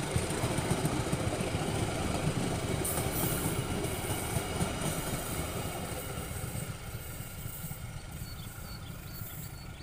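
Indonesian passenger train's coaches rolling past on the rails, a steady rumble of wheels on track that fades over the last few seconds as the end of the train moves away.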